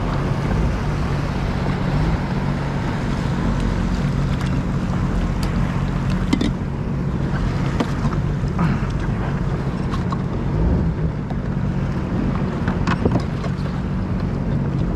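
Jet ski engine running steadily under way, a constant hum under a wash of wind on the microphone.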